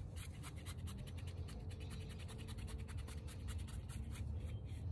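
A nearly dry paintbrush scrubbing white contrast paint onto a textured cast-concrete statue: a fast, even run of short scratchy brush strokes against the rough surface.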